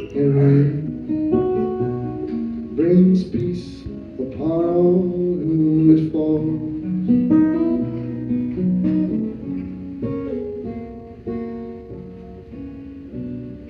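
Live acoustic guitar played through a PA, a song of picked and strummed notes changing several times a second, with a voice singing briefly around three to five seconds in.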